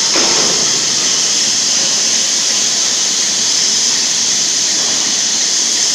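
A loud, steady hiss with no crackle or rhythm.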